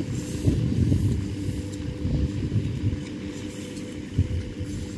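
Rice combine harvester engine running steadily, a continuous hum under an uneven low rumble.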